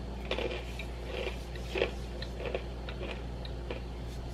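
Someone chewing a crunchy sourdough cheddar pretzel bite with the mouth closed: irregular crunches, roughly one every half second.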